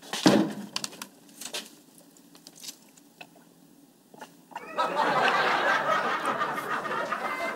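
Sitcom studio-audience laughter that starts about five seconds in and keeps going, after a quiet stretch with a few small clicks.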